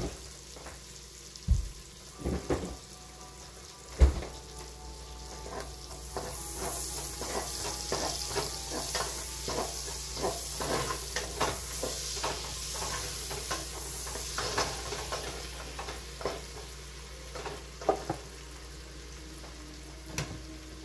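Chopped onion and garlic sizzling as they fry in butter in a stainless steel saucepan, stirred and scraped with a spatula; the sizzle swells in the middle as the pan is stirred. A few sharp knocks against the pan come in the first four seconds, the loudest about four seconds in.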